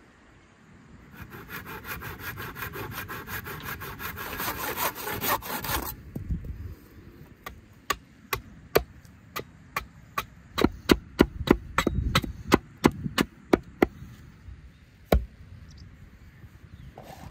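Small axe chopping at a wooden pole on a stump chopping block: a run of sharp, separate chops, slower at first and then quicker, with one last blow a little later. Before the chops there are a few seconds of rapid, even rasping on wood.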